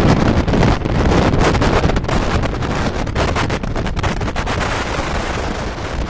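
Strong wind buffeting the camera microphone in loud, irregular gusts.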